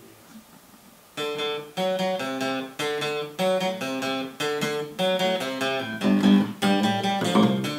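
Two acoustic guitars start strumming chords about a second in, changing chord in a steady rhythm.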